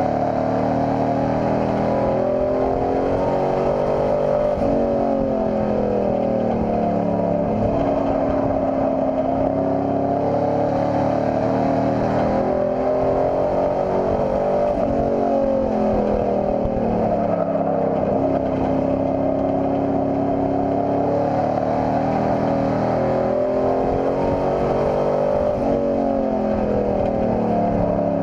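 Hobby-class race pickup truck's engine heard from inside the cab under hard running. The pitch falls off four times as the driver lifts for the turns and climbs again on each straight.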